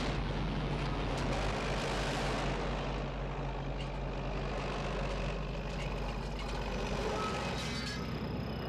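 Movie sound effects of a bulldozer engine running with a steady low drone as it rams a pickup truck over. A rough crashing, grinding noise is loudest in the first few seconds, and a few knocks come near the end.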